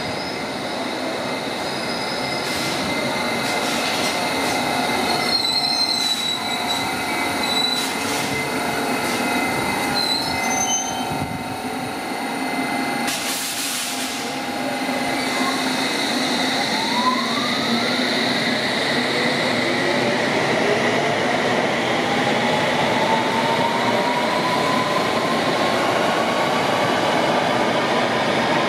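London Underground S8 Stock electric train running along curved track, with high wheel squeal in the first half. From about halfway a whine climbs steadily in pitch as the train's traction motors accelerate.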